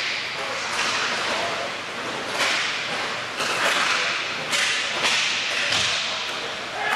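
Roller hockey play in a large, echoing rink: about six sharp cracks of sticks and puck striking the floor and boards, each ringing out in the hall, over a steady hiss of play.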